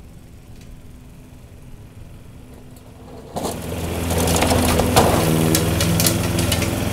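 Petrol lawn mower engine running, faint and steady at first, then suddenly much louder a little past halfway, with a rough clattering noise and scattered clicks on top.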